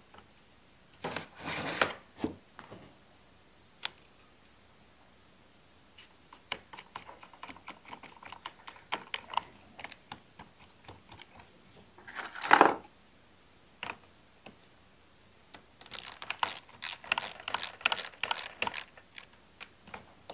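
Hand socket ratchet clicking while bolts are run down on a Stihl 023 chainsaw, with a dense run of quick, even clicks near the end and fainter clicks in the middle. Twice earlier, a short loud rustle of parts and plastic being handled.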